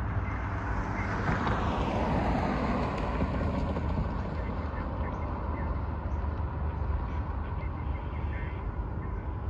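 A car passing on the street about a second in, its rushing tyre noise dropping in pitch as it goes away, over a steady low wind rumble on the microphone.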